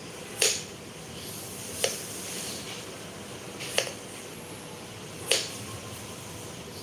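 A kitchen knife slicing through a ridge gourd into rounds and striking a wooden chopping board: four sharp chops, one every one and a half to two seconds.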